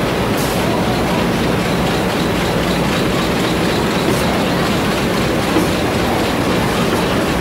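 Rubber-processing machinery running steadily in a workshop, a loud continuous mechanical din made of many small rapid clicks.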